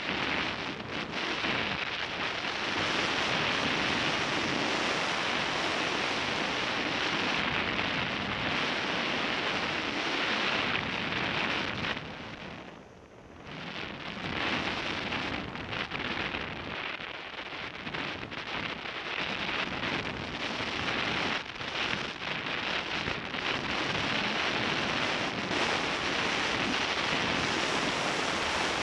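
Rushing wind noise from the airflow over a hang glider's camera microphone in flight, steady and loud, with a brief lull about halfway through.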